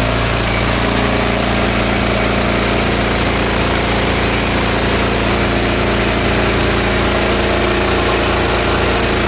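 Engine-driven duct-cleaning equipment, a high-powered vacuum and air compressor unit, running loudly and steadily with an even low hum.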